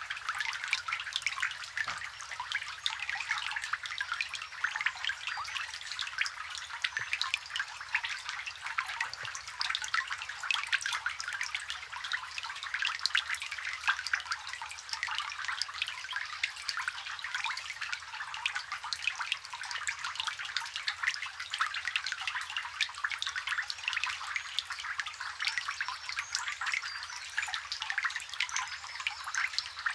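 Rain falling onto a water surface, recorded close: a dense, steady patter of countless small drops plinking and splashing.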